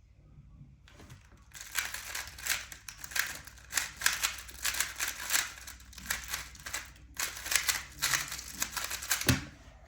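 A Rubik's Cube being turned rapidly in a speed solve: fast plastic clicking and rattling of the layers, with a brief pause about seven seconds in, then a low thump near the end as the solve stops.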